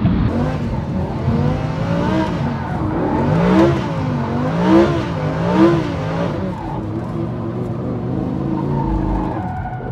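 Lamborghini Huracán's V10 heard from inside the cabin on the move, its revs climbing and falling back three times in quick succession around the middle.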